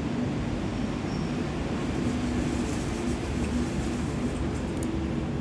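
Steady mechanical rumble with a low hum, without distinct clicks or knocks.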